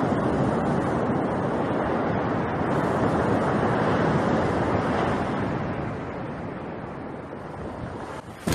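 Ocean surf: waves breaking and washing up the sand in a steady rush, which eases off after about five seconds.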